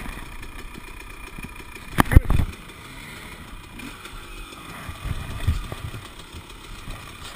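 Enduro dirt bike engines, KTMs, idling steadily, with a loud knock about two seconds in.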